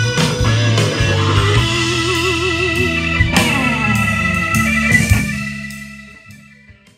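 Rock music with electric guitar and drums, including sustained guitar notes bent with vibrato about two seconds in. It fades out steadily over the last two seconds to silence.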